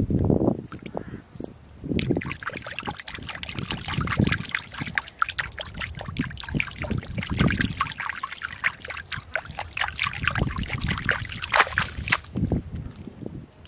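Bare hands scooping and squelching wet mud in a shallow waterlogged hole, with water trickling and splashing. There are dull low squelches throughout, and a dense crackle of small drips and splashes from about two seconds in until near the end.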